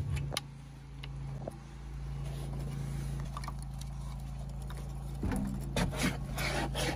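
Metal click of a Cubic Mini Grizzly wood stove's door being opened, then wood starter and kindling pieces knocking and scraping in the firebox as they are laid in, over a steady low hum.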